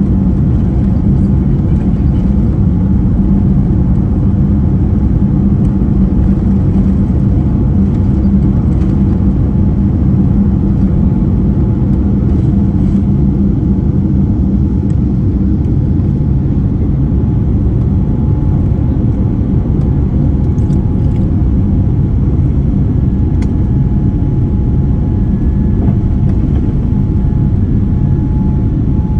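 Steady low rumble inside a Boeing 787-9 cabin: engine and airflow noise heard from a rear window seat, with a faint steady tone joining in over the second half.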